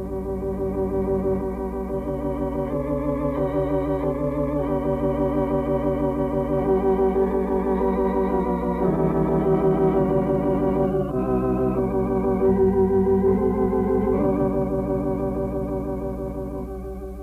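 Slow organ music from a silent-film score: sustained chords with a wavering tremolo, changing every second or two and fading a little near the end.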